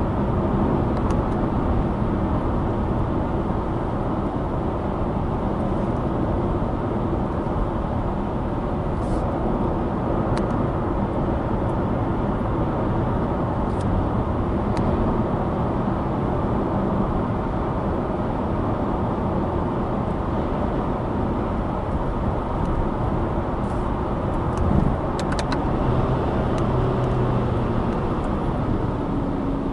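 Subaru Impreza Sport's FB16 flat-four engine and tyre noise while driving downhill: a steady road rumble with a few faint clicks and a short shift in engine pitch near the end.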